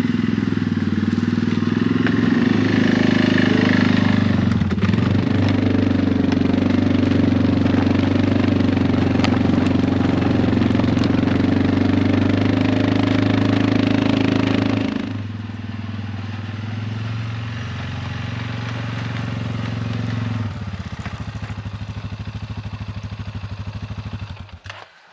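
Small engine running steadily under load, then dropping to a lower, quieter speed about two-thirds of the way through, and shut off just before the end.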